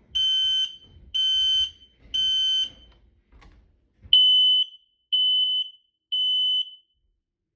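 Kidde smoke detector sounding its code 3 (temporal-three) fire signal. Two rounds of three high-pitched beeps, each about half a second long and a second apart, with a pause between the rounds.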